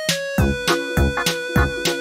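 Background music: a held melody note over a steady beat of about three hits a second.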